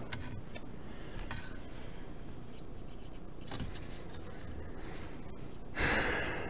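A few faint, sparse ticks from a fine tool touching the pins of an LGA3647 CPU socket, over a steady background hiss. Near the end comes a short, louder rustling noise.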